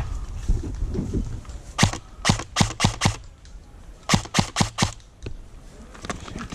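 Airsoft electric rifle, a Krytac SBR, firing two quick strings of sharp shots, about five and then four, a second apart, with one more single shot shortly after.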